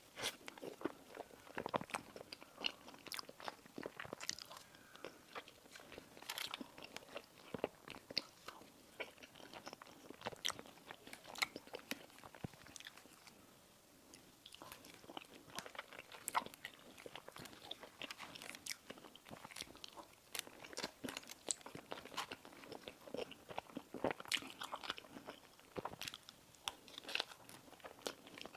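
Close-miked eating sounds: crisp pastry being bitten and chewed, with many sharp crunches and crackles and a short quieter lull about halfway through.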